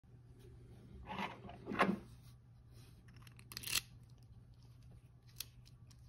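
Hands picking up a metal thumb-turn euro lock cylinder and brass key from a wooden table: a few short scraping handling noises, then a single sharp metallic click near the end as the key goes into the cylinder.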